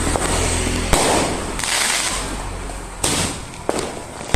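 Fireworks and firecrackers going off: several sharp bangs spaced about a second apart, each trailing off into a crackling hiss.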